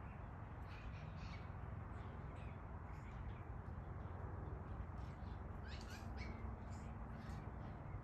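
Birds calling: short high calls repeated every second or so, a little louder about six seconds in, over a faint low rumble.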